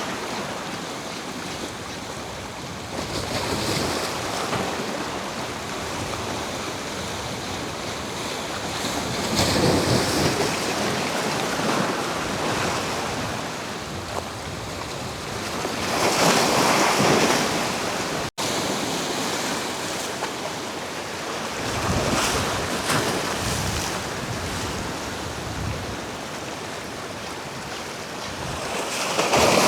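Sea waves washing against the jetty rocks, swelling louder every several seconds, with wind buffeting the microphone.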